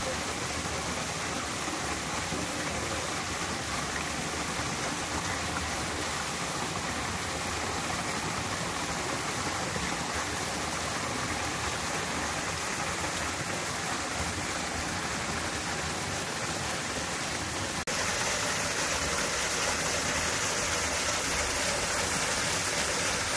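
Creek water pouring over a small waterfall ledge: a steady rushing splash that gets a little louder about eighteen seconds in.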